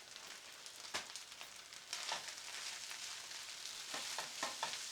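Chicken fried rice sizzling in a frying pan, a steady hiss with a few short clicks of a utensil against the pan.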